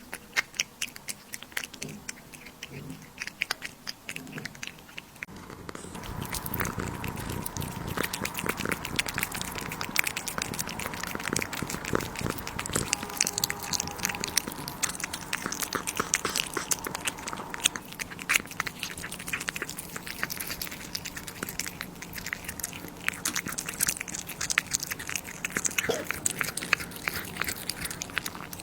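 A pet chewing and crunching food: dense, rapid crunching clicks that get louder about six seconds in.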